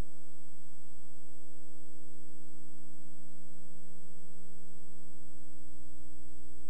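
Steady electrical hum with a thin high whine above it, unchanging. It is the noise of a silent film's transfer and carries no sound from the scene.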